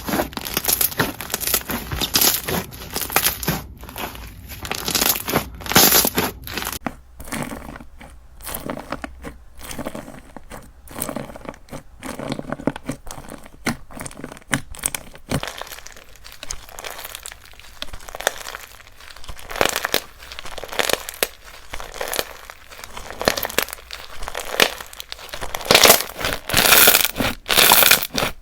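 Crunchy slime packed with plastic Perler beads being squeezed, pressed and poked, giving dense crackling and crunching of the beads, with louder bursts near the end.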